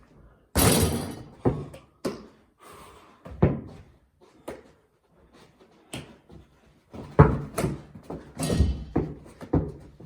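Basketball being played indoors: a ball thudding hard against surfaces, with a loud rattling crash about half a second in, then a string of separate thumps.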